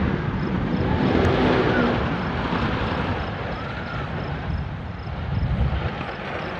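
Wooden roller coaster train rumbling and clattering along its wooden track, swelling loudest about one to two seconds in and again near the end.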